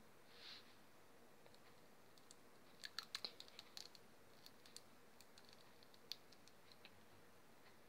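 Near silence with a soft hiss just after the start, then a scatter of faint small clicks, bunched about three seconds in and sparser after, from a plastic liquid-glue bottle being held and squeezed over a plastic bowl.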